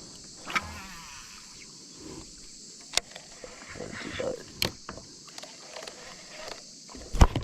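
Steady high insect hum, with a few sharp knocks and clicks scattered through it, the loudest pair near the end.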